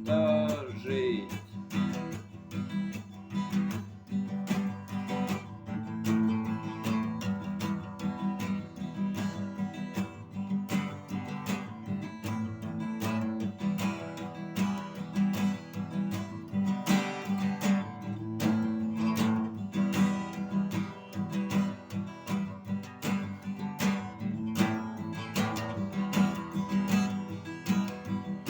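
Acoustic guitar strummed in a steady rhythm, playing the song's instrumental break, with a last sung note trailing off about a second in.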